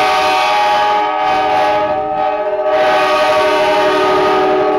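Locomotive air horn sounding a long, loud blast of several notes at once, fading a little about a second in and swelling again near the three-second mark.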